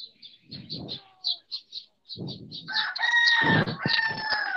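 A rooster crowing once, a long call starting about three seconds in and dropping in pitch at the end, over a run of rapid high chirps, heard through a student's open microphone on a video call.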